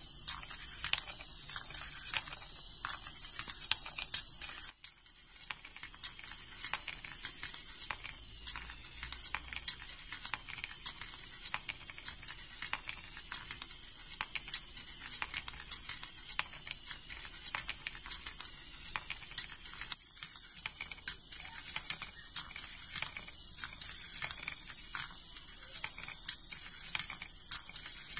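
Homemade wooden marble machine running: steel balls clicking and rattling irregularly, several times a second, against its brass wire tracks and wooden parts, over a steady high hiss.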